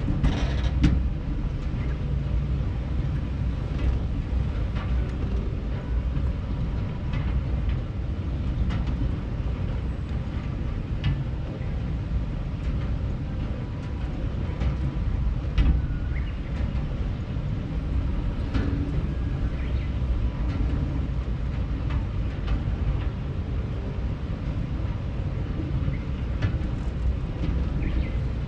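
Auto chair, a rail-guided ride chair, running along its track, heard on board: a steady low rumble with scattered light clicks and knocks, the strongest about a second in and again about halfway through.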